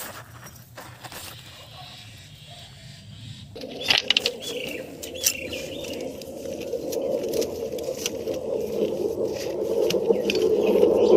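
A chain filter wrench and spanner clink and rattle against a tractor's spin-on oil filter as it is being loosened. About three and a half seconds in, a steady rushing noise starts and keeps growing louder.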